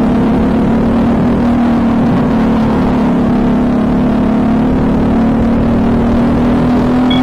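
Briggs & Stratton LO206 single-cylinder four-stroke kart engine running hard at racing speed, with wind rush on the helmet-mounted microphone. Its note dips slightly about a second in, then climbs slowly as the kart accelerates.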